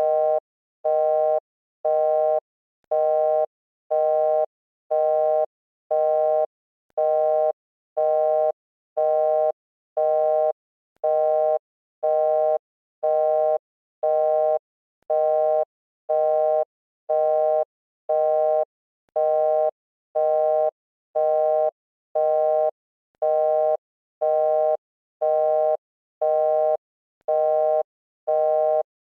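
Telephone busy signal: a two-tone beep, on for about half a second and off for about half a second, repeating steadily about once a second.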